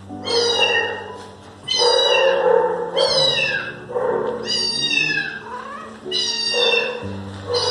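Cat meowing again and again, about five meows with short gaps, over background music.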